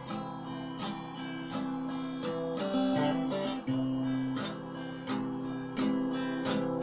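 Instrumental passage of a song: acoustic guitar strummed in a steady rhythm, holding chords between sung lines.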